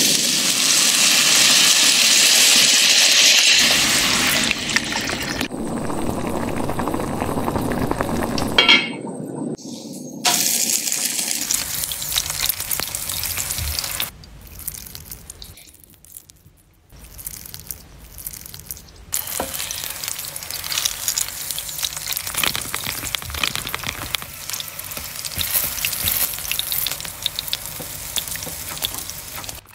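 Food sizzling in hot oil across several cooking shots: a loud hiss as cooking wine is drizzled around a hot pot of onions and garlic, then, after quieter stretches and a single sharp clack about nine seconds in, the steady sizzle and crackle of a flatbread and cheese-filled tacos frying on a flat pan.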